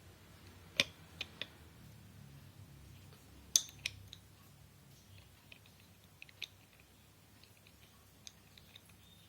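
Sparse sharp clicks and light knocks of hard objects being handled, the loudest two about a second in and at about three and a half seconds, over a faint low hum.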